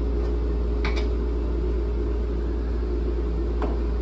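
Air hockey table's blower fan humming steadily, with one sharp click of a mallet hitting the puck about a second in.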